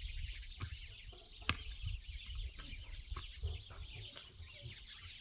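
Many small birds chirping continuously, with chickens clucking and a few sharp clicks, the loudest about one and a half seconds in.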